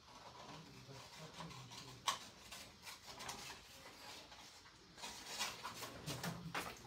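Sheet of printer paper being handled and rustled on a desk, with a sharp tap about two seconds in and a few more rustles and taps near the end.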